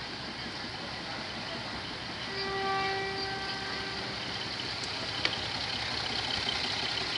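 Train horn sounding one steady blast of about two seconds, over steady background noise. A single sharp click comes about five seconds in.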